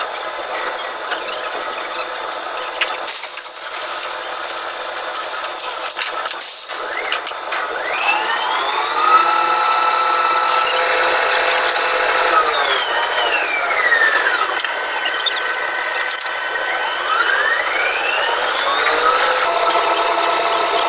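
Drilling rig machinery noise: first a steady hissing din with a few knocks, then from about eight seconds in the electric whine of the rig's hoisting motors. The whine rises in pitch, holds, falls away, and rises again as the travelling block is hoisted and lowered while running pipe.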